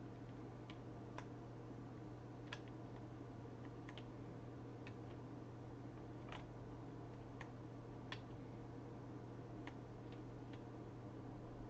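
Faint, irregularly spaced clicks of computer controls, about one a second, over a steady low electrical hum and hiss.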